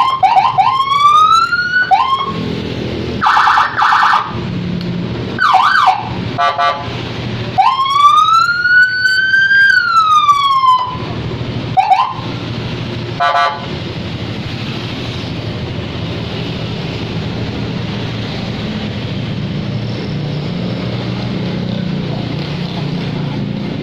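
Vehicle electronic siren cycling through its tones: quick rising whoops, a short buzzing blast, one long wail that rises and then falls, and a couple of short chirps. For the last ten seconds only a steady low rumble remains.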